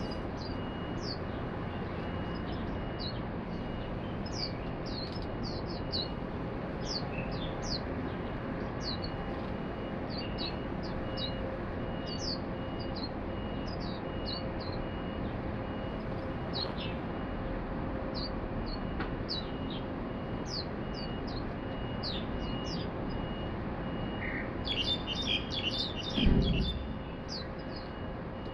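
Swinhoe's white-eyes calling: many short, thin, high chirps that slur downward, scattered through the whole stretch over steady low background noise. Near the end there is a brief burst of busier twittering and a single thump, the loudest sound.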